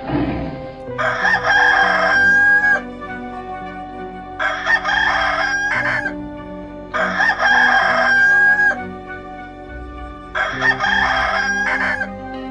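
Rooster crowing four times, about three seconds apart, each crow ending in a long held note.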